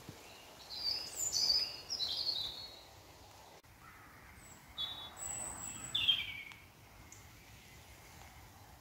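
Woodland songbirds singing: two bursts of high, chirping phrases with falling notes, about a second in and again around five to six seconds, over a faint steady background hiss.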